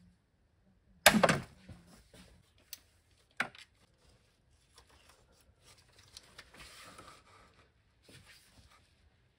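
Hand-tool work on the oil filter housing bolts of a BMW N55 engine: a loud knock about a second in, a sharp metal click a couple of seconds later, then stretches of light clicking and rustling as the ratcheting wrench and gloved hands work the bolts.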